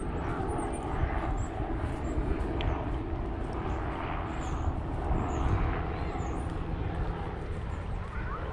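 A steady low engine rumble heard outdoors, like distant traffic or a passing aircraft, with a few faint high chirps.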